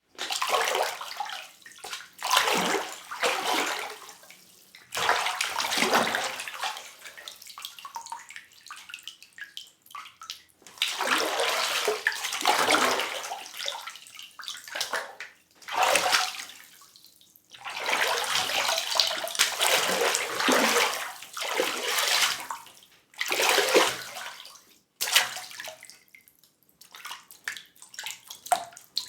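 Falling water rushing and splashing in uneven surges, each lasting from about a second to several seconds, dropping away almost to silence between them.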